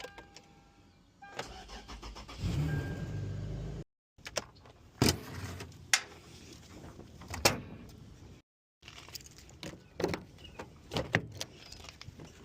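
A car's warning chime sounds at first. About two seconds in, the engine starts and runs briefly. After that come a series of sharp clicks and clunks of doors and handling around a vehicle.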